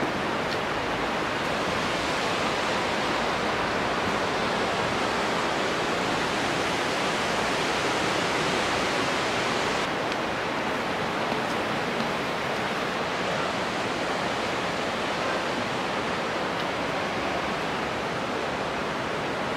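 Steady rushing of the Capilano River in the canyon below, an even hiss of fast-flowing water.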